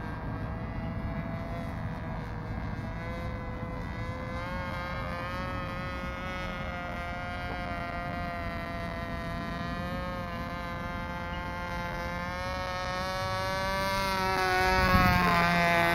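Cox .049 two-stroke glow engine of a small RC model plane buzzing steadily in flight. Near the end it grows louder as the plane passes low and close, and its pitch drops as it goes by.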